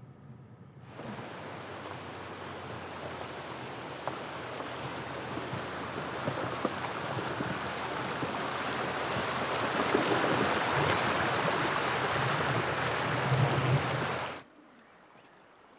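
Rushing river water, a steady roar that grows louder, then cuts off suddenly near the end.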